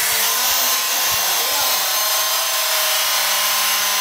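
Handheld electric cutting tool running steadily at full speed as it cuts through a strip, a loud continuous whine.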